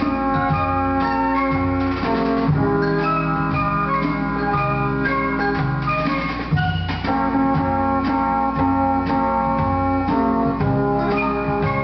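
Instrumental easy-listening band music, with an organ holding sustained chords over a walking bass line.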